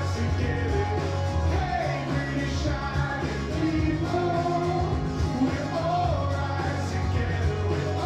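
Rock song playing from a vinyl record on a Royce Spectrum turntable, through a Sansui A-510 amplifier and Castle Acoustics Richmond MK2 speakers.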